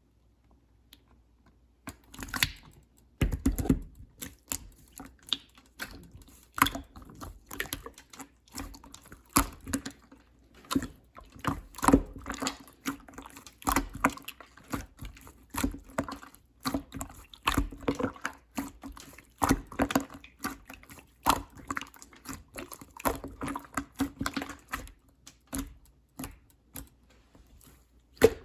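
Clear slime being squeezed and poked by hand, making irregular wet clicks and pops that start about two seconds in.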